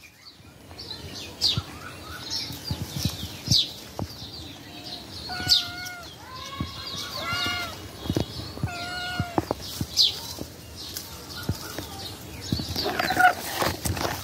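A kitten meowing several times, mostly in the middle and again near the end, with short, sharp falling bird chirps every couple of seconds and scattered light knocks.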